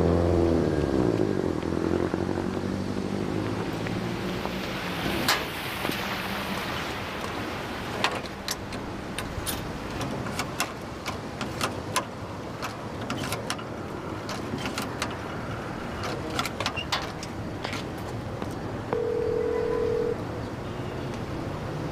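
Background music dies away in the first few seconds and gives way to a steady hiss with scattered sharp clicks. Near the end, a payphone receiver gives a one-second telephone ringing tone.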